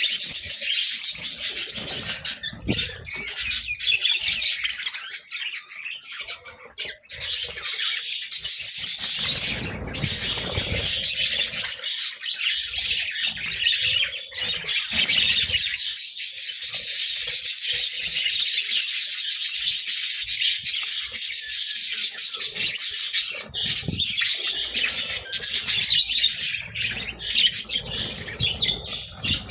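A flock of budgerigars chattering and chirping continuously, with scattered short clicks and flutters among the calls.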